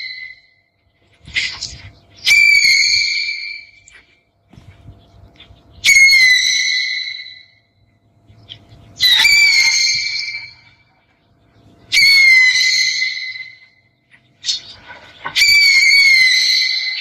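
An owl calling over and over, about every three seconds. Each call is a high, wavering whistle lasting about a second and a half.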